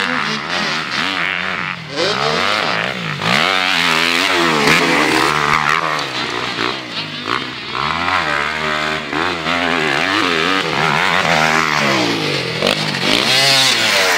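Motocross bikes on a dirt track, their engines revving up and down again and again as the riders open and close the throttle through the turns and jumps. The engine sound is loudest near the end, as one bike passes close.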